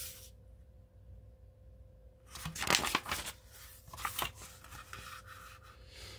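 Page of a picture book being turned by hand: paper rustling and sliding, loudest about two and a half to three seconds in, with a shorter rustle about four seconds in.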